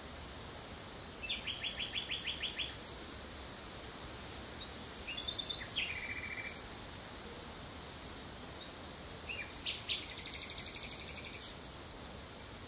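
Common nightingale singing, three separate phrases of rapid repeated notes about a second in, in the middle and near the end, over a steady background hiss.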